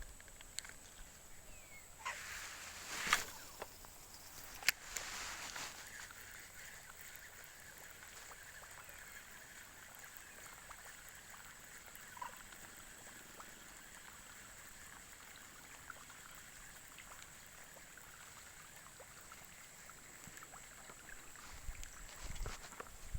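Faint outdoor ambience with a steady high hiss, broken by a few sharp clicks about three and five seconds in and a short rush of noise just after.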